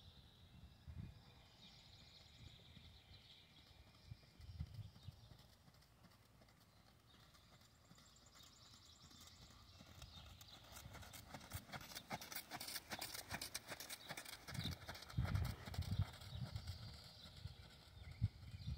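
Horse's hooves trotting on a sand arena: faint at first, then from about halfway a quick run of sharp, light beats that grows louder and denser as the horse comes near.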